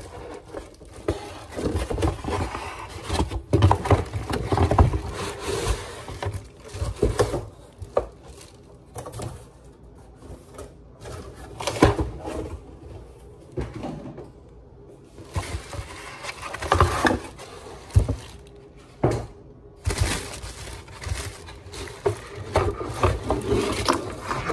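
Unboxing handling noise: a cardboard box and molded pulp packing inserts scraping and knocking on a countertop, with crinkling of the plastic bag wrapped around an electric griddle. The knocks and rustles come irregularly.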